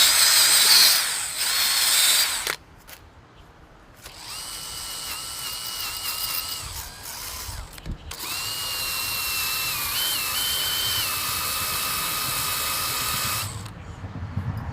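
Small electric power tool running in three spells, a high whine over a hiss, as it cleans a metal connection point. It stops about two and a half seconds in, starts again a moment later, breaks briefly around the middle and cuts off near the end.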